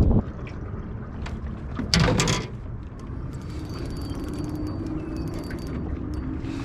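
Fishing reel being cranked: a faint whirring with small clicks, after a brief loud noise about two seconds in.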